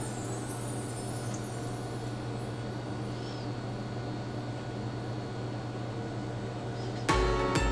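A steady low hum with an even hiss underneath. Background music with a deep bass comes back in near the end.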